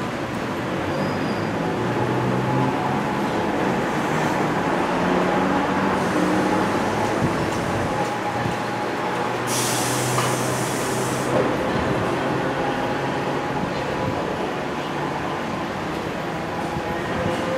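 Toyohashi Railway Mo3200-class streetcar pulling away from a stop and running off through a curve, a steady rumble of motors and wheels on rail with a low hum. About ten seconds in comes a hiss lasting about two seconds.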